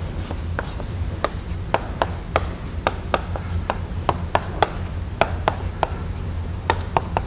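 Chalk tapping and scraping on a blackboard as it writes: a run of short, sharp clicks at an uneven two or three a second, over a steady low hum.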